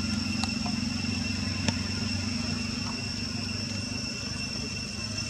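A steady low hum with two steady high-pitched whines above it, and a couple of faint clicks in the first two seconds.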